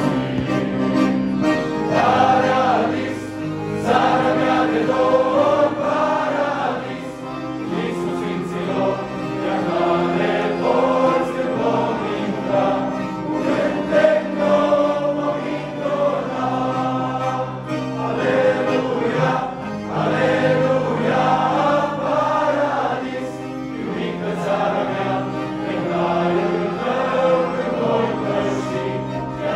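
Young men's choir singing a Romanian hymn, accompanied by several piano accordions holding sustained chords beneath the voices.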